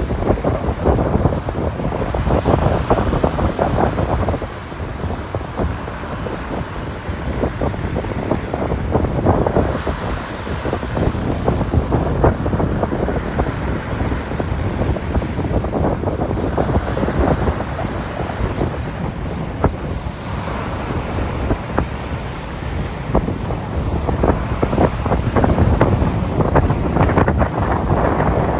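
Strong wind buffeting the microphone in gusts over the rush of small waves breaking on the beach.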